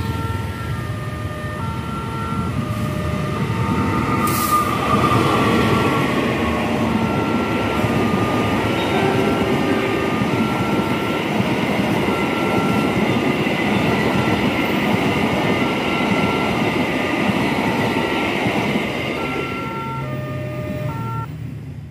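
Kamandaka passenger train passing close by: the diesel locomotive and then a long rake of coaches make a steady rolling rumble of wheels on rail. The rumble builds a few seconds in and eases off near the end as the last coach goes by. Through it sounds a repeating string of short beeping tones at changing pitch.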